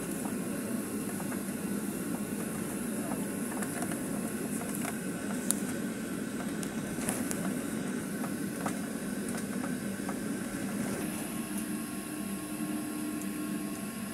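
Steady cabin noise of a jet airliner taxiing: the engines at idle and the air-conditioning hum, with a few light clicks about halfway through.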